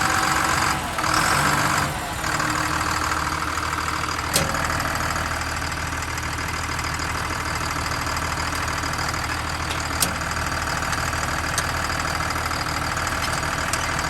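CAT D6M XL dozer's diesel engine idling steadily, with a couple of sharp clicks, about four seconds in and again about ten seconds in.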